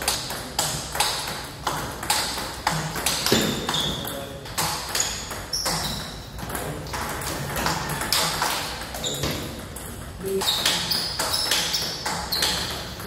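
Table tennis rally: the celluloid-type ball clicks sharply back and forth off rubber paddles and the table top, in quick succession, with a lull about two-thirds of the way through.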